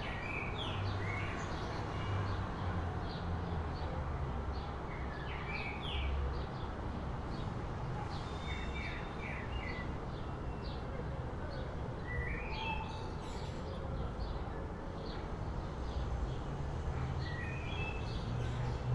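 Small birds chirping and twittering in short, repeated calls over a steady low background rumble.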